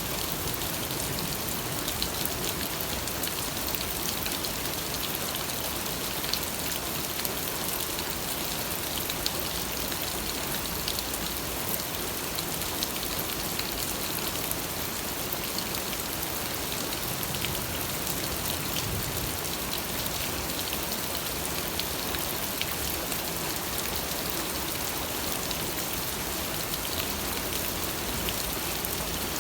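Steady rain falling, an even hiss with many small drop patters.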